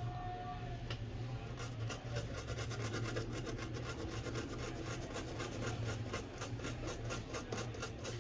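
Rapid rhythmic scraping strokes on a phone's circuit board, about five a second, starting a second or two in, over a steady low hum.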